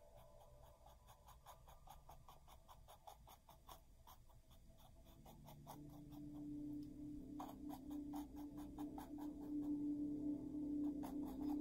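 Paintbrush dabbing and scratching on textured canvas in quick short strokes, several a second. A faint steady low tone comes in about halfway.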